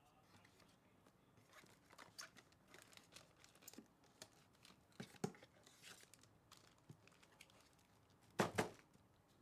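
Trading card pack wrappers crinkling and tearing as the packs are opened, in faint, scattered rustles with a louder rustle near the end.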